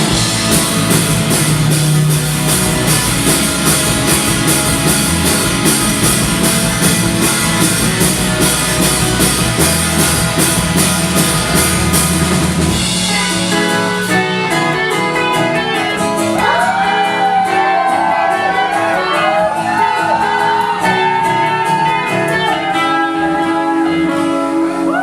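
Live rock band playing the close of a song: guitars, bass and a drum kit with crashing cymbals at full volume. About halfway through, the bass and drums drop away, leaving a thinner sound with wavering, bending high notes.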